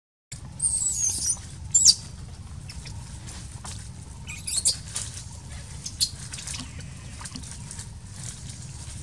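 Baby macaque giving high-pitched squeals: a wavering one about half a second in and a sharp falling one just before two seconds. Shorter squeaks follow around four and a half seconds, with faint clicks and rustles in between.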